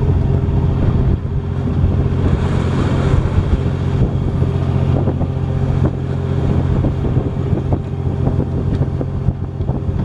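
Fishing boat's engine running, a steady low drone throughout.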